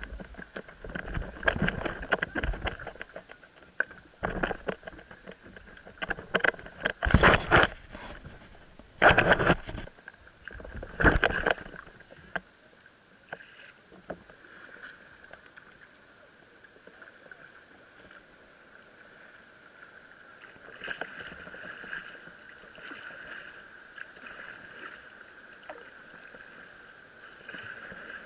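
Kayak paddle strokes splashing in the water, a loud stroke about every two seconds for the first twelve seconds. The strokes then give way to quieter lapping and dripping, with softer strokes again near the end.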